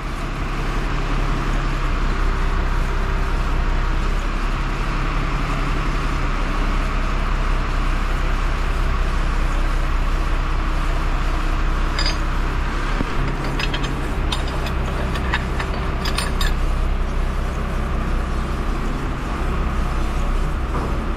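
Truck engine running steadily to power a truck-mounted hydraulic crane as it lifts a man in a harness, with a few light metal clinks past the middle.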